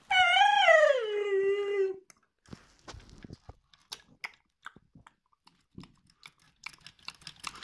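A high, wavering squeal that slides down in pitch over about two seconds, voiced for a LEGO creature, followed by scattered small clicks and crunches as the creature is made to eat.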